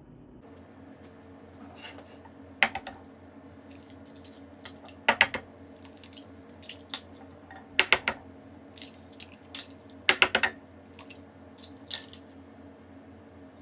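Raw eggs being cracked one after another against a ceramic mixing bowl: about five clusters of sharp taps, every two to three seconds, over a low steady hum.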